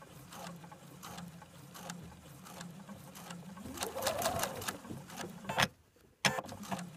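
Electric sewing machine stitching a seam at a slow, steady speed, the motor and needle running evenly, with a brief rise and fall in speed around the middle. It stops for about half a second near the end, then starts stitching again.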